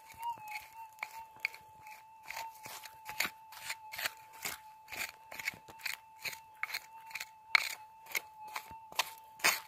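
A hand tool scraping and raking rocky gravel and dirt in a crevice, in quick crunching strokes about three a second. Under it runs the steady tone of a Minelab Gold Monster metal detector left switched on.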